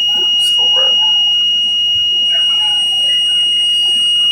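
Orion VII city bus's warning buzzer sounding one steady, high-pitched tone without a break, an alarm the rider takes for an engine overheat warning.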